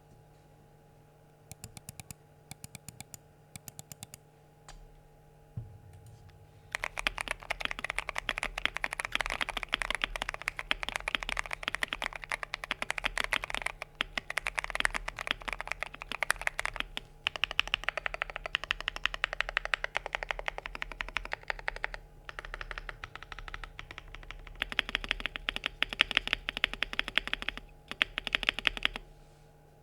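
Typing on a gasket-mounted Monsgeek M5 full-size mechanical keyboard with tactile Gateron Jupiter Brown switches, a polycarbonate plate and case foam. A few short groups of key presses come first, then continuous fast typing with brief pauses, over a faint steady hum.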